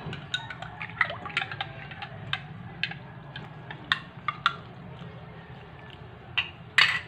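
Liquid poured from a plastic cup into a bowl of flour for pancake batter, with drips and a scatter of light clicks and taps against the bowl, and a sharper knock near the end. A low steady hum sits underneath.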